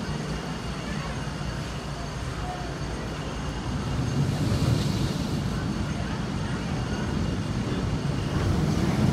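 A roller coaster train running along its steel track on a test run: a steady rumble that swells about four seconds in and again near the end.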